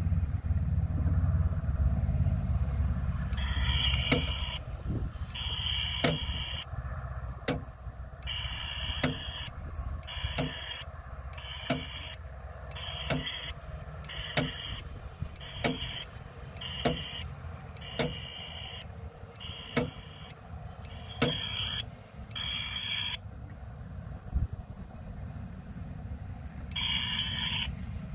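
Rotary inductor tap switch of an MFJ Versa Tuner manual antenna tuner clicking step by step as it is turned, a sharp click about every second or so, while the operator searches for the best antenna match. Short buzzing tone bursts of about a second each come and go between the clicks, over a steady low rumble.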